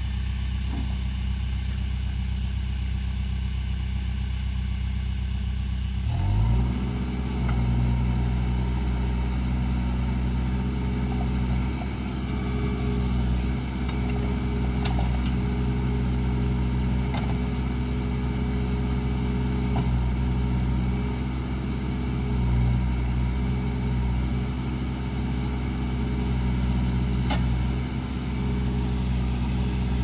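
Case 580 Super M backhoe's four-cylinder diesel engine idling, then speeding up about six seconds in and running steadily at the higher speed, with a few faint clicks.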